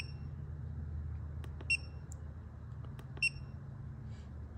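BossComm iFix435 OBD2 scan tool beeping as its buttons are pressed: three short, high beeps about a second and a half apart, each just after the faint click of a key.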